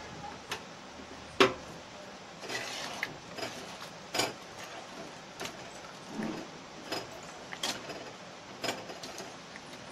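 A dal masher knocking against the inside of a pressure cooker pot while boiled dal is mashed smooth: irregular knocks about one a second, the loudest a little over a second in.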